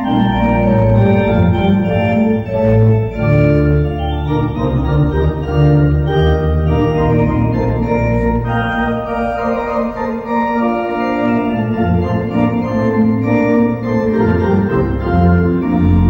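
Organ music: slow, sustained chords over a deep bass, moving to a new chord every second or two.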